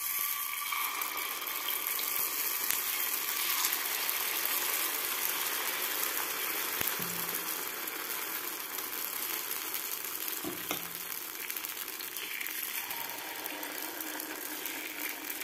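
Batter sizzling steadily in hot oil in the cups of a gunta ponganalu (paniyaram) pan as it fries.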